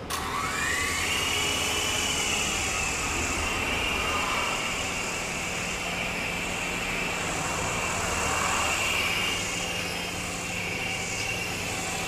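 Small remote-control toy helicopter's electric motor and rotors spinning up with a rising whine, then holding a steady high-pitched whine as it flies; the whine weakens a little near the end.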